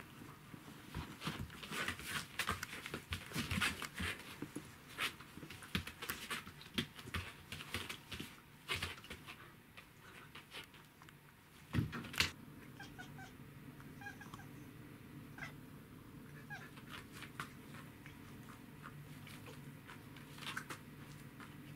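A Welsh corgi and a black cat play-fighting on a hard floor: busy scuffling with paws and claws clicking, two loud knocks about twelve seconds in, then sparser light ticks over a steady low hum.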